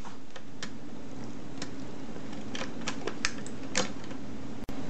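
Light plastic clicks and taps, about ten at irregular intervals, as wall light-switch modules are snapped into a plastic switch frame, over a steady low hum. The sound drops out for an instant near the end.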